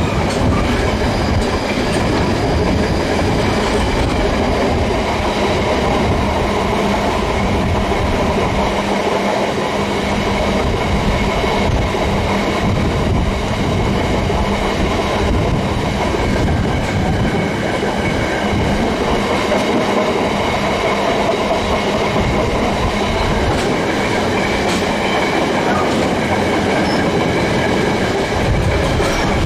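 Container wagons of a long freight train rolling steadily past, the wheels rumbling and clacking over the rail joints, with a few faint high steady tones above the rumble.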